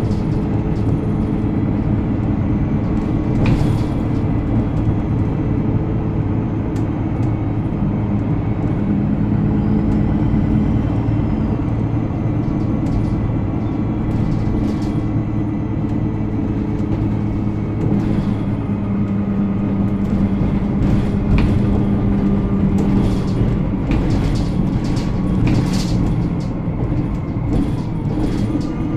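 Alexander Dennis Enviro 300 single-deck bus under way, its engine running steadily, with frequent short clicks and knocks. A faint high-pitched squeal sounds over it, rising and falling once about a third of the way through.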